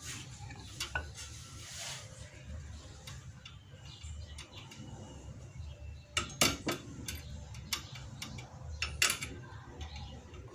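Small metal brake parts clinking and tapping as brake pads and their retaining hardware are worked into a disc brake caliper by hand. There are a few sharper metallic clicks and knocks, bunched past the middle and again near the end.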